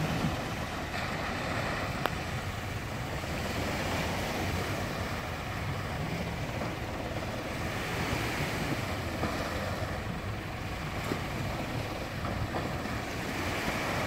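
Small waves washing up a concrete boat ramp, with wind buffeting the microphone and a low engine running underneath.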